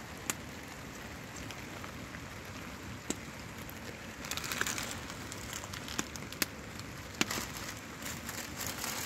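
Steady heavy rain falling, with a wood cooking fire crackling and giving about five sharp pops.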